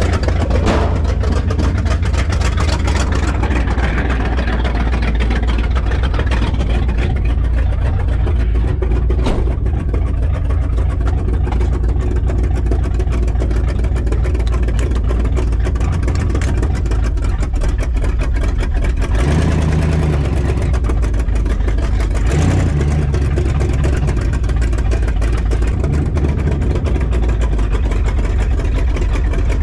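1968 Dodge Charger R/T's V8 engine idling steadily on its newly installed Demon carburetor. The idle note shifts a few times about two-thirds of the way through.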